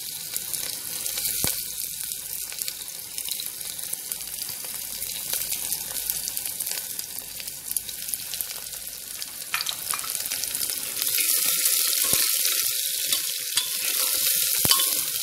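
Chopped onions and garlic sizzling in hot oil in an aluminium pressure cooker, with a few clicks. The sizzle gets louder about eleven seconds in as a metal ladle stirs the pan.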